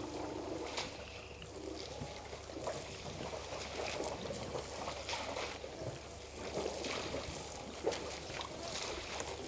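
A herd of African elephants walking close by over dry grass and sand: irregular rustling, soft footfalls and small crackles over a steady background hiss.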